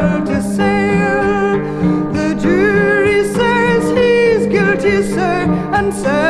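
Music: a folk ballad recording with a woman singing over acoustic guitar, with a steady low accompaniment.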